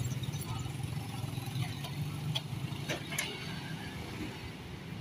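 Motorcycle and car traffic crossing a railway level crossing: a steady engine rumble with a few sharp clicks around the middle.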